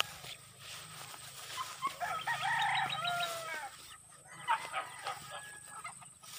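A rooster crowing once, starting about two seconds in and lasting under two seconds.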